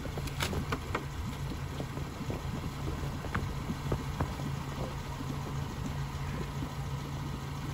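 Off-road vehicle engine idling steadily, with a few sharp clicks and knocks on top.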